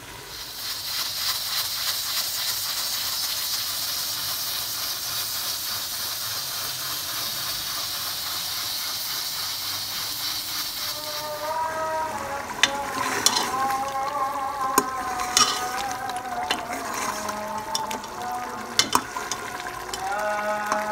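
Pressure cooker on a gas flame hissing steadily as steam escapes, cutting off about halfway through. Then a steel ladle clinks sharply against the metal pot a handful of times as the cooked mutton trotters are stirred.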